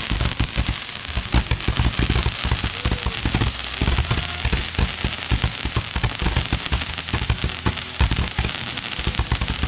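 Many fireworks going off at once: a dense, irregular run of bangs several times a second over a constant crackle, with no pause.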